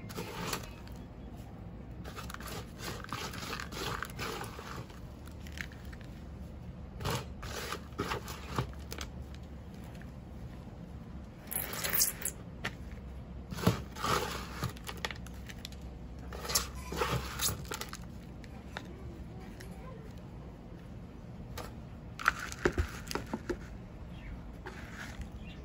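Hands scooping and dropping loose potting mix into a plastic pot: irregular crunching and rustling of soil, with a few sharp knocks against the plastic. Near the end the mix is poured straight from a plastic tub.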